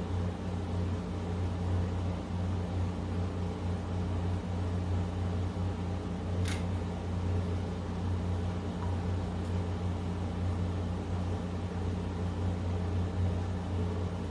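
Steady low machine hum made of several steady tones, with one sharp click about six and a half seconds in.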